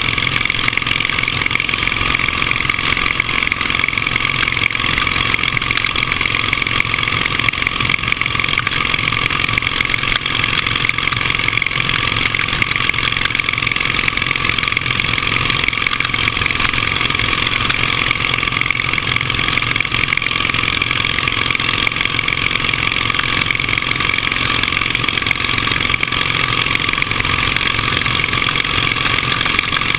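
Vintage motorcycle engine running steadily at speed, heard from an onboard camera with wind rushing over it.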